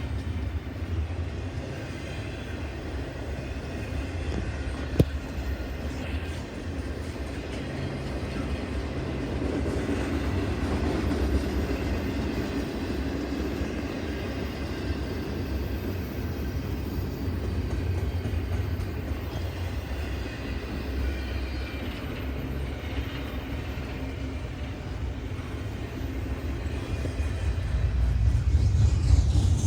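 A train running by with a steady low rumble, a single sharp click about five seconds in, growing louder near the end.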